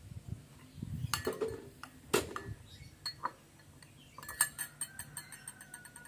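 A spoon clinking against a glass, stirring medicine into hot water: single clinks, then a quick run of taps near the end.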